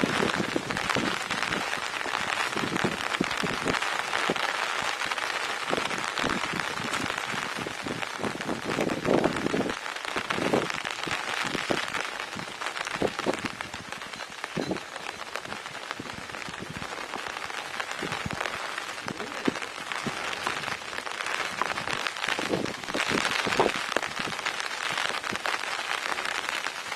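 Steady rain falling, with many separate drop hits close by.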